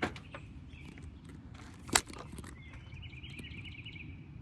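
Hand-tool clicks and taps while a 36 mm socket is worked on a BMW's plastic oil filter housing cap, with one sharp clack about two seconds in. A short warbling chirp comes in near the end.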